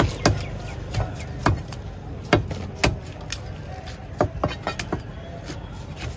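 A large curved fish knife chopping through fish on a wooden block: roughly a dozen sharp chops at an uneven pace, over a low background rumble.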